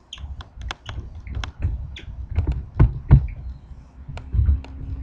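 A cloth wiping a whiteboard clean: irregular rubbing strokes with quick clicks and dull knocks of the hand against the board. A faint steady hum comes in near the end.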